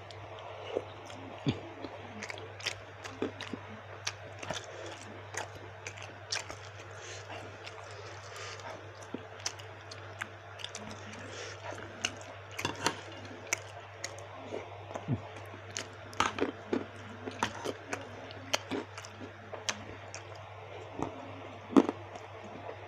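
Close-up chewing of baso aci, chewy tapioca meatballs, with many sharp wet mouth clicks and crunches. A steady low hum runs underneath.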